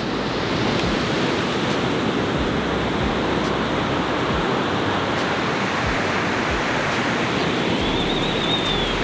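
Ocean surf washing on a beach, a steady, even rush of breaking waves.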